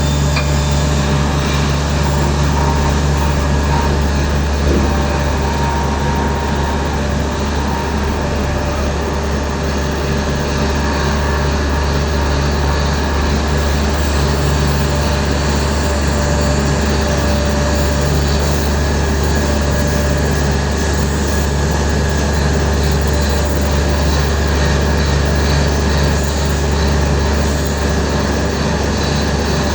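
Sumitomo HA60W wheeled asphalt paver's diesel engine running steadily under load, a deep continuous drone with a few faint steady whines above it.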